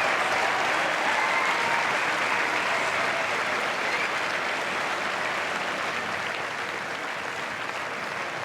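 Tennis crowd applauding at the end of a match, a steady clapping that gradually dies down.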